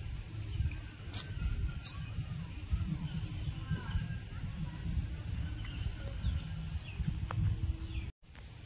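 Outdoor ambience: an uneven low rumble on the microphone with a few faint bird calls over it. The sound cuts out for a moment near the end.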